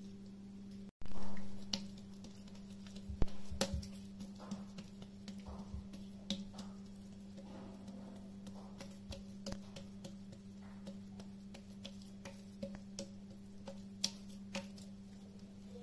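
Hands patting, pressing and spreading oiled parotta dough thin on a countertop: a string of soft pats and sticky taps, the loudest about a second and three seconds in, over a steady low hum.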